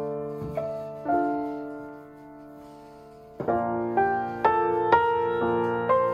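Background solo piano music. A few notes ring out and fade, then about halfway through a run of notes begins, struck about twice a second.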